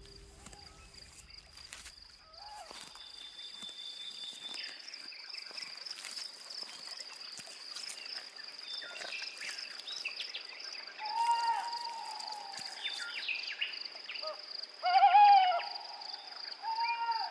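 An owl calling several times with short, arched, hoot-like notes; the loudest comes about fifteen seconds in. Under the calls runs a steady high-pitched insect trill, with scattered small-bird chirps.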